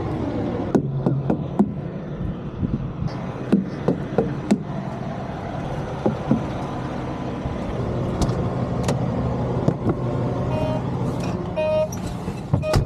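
Semi truck's diesel engine idling steadily, with scattered sharp knocks and clicks over it. Near the end, a few short electronic chime tones.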